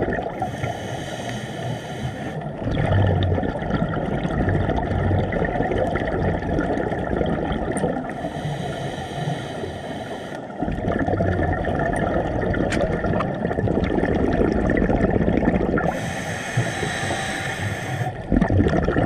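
Underwater noise of a scuba diver breathing through a regulator: three bursts of exhaled bubbles, each about two seconds long and roughly eight seconds apart, over a steady rush of water.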